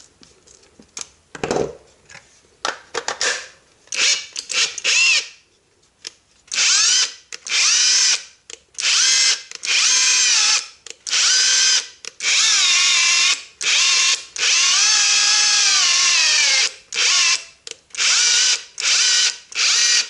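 Cheap AliExpress cordless impact driver run free in a dozen or so short trigger pulls, the motor whine rising and falling in pitch with each pull, with one longer run about two-thirds through. This is a test run after a repair to its broken trigger switch. A few handling clicks and a knock come first.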